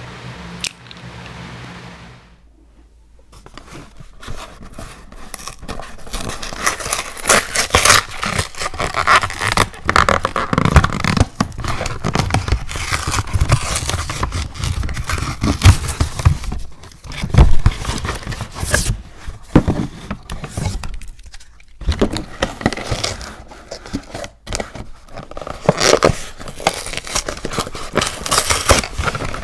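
Close-miked scraping, crinkling and tearing handling noises, dense and irregular, starting about three seconds in after a short lull.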